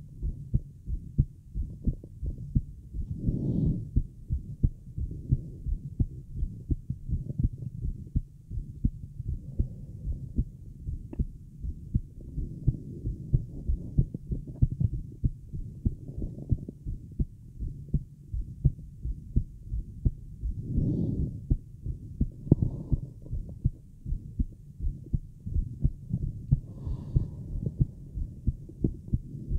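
A woman's fast heartbeat heard through the chest piece of a Littmann acoustic stethoscope, a steady run of low, regular thumps. A few times a longer rushing sound of breathing comes through over the beats.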